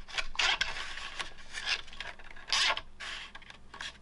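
Nylon zip tie being pulled tight through its ratchet head in several short pulls, with fingers rubbing on the tie.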